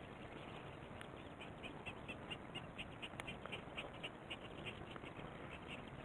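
Faint animal call repeated as a fast, even series of short high chirps, about five or six a second, starting about a second in.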